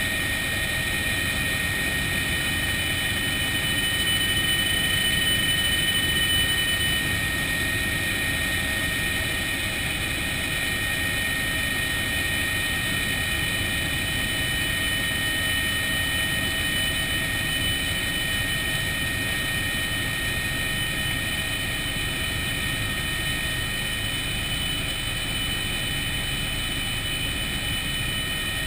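Helicopter in flight heard from inside the cockpit: a steady high whine over a constant low rumble, a little louder for a few seconds near the start.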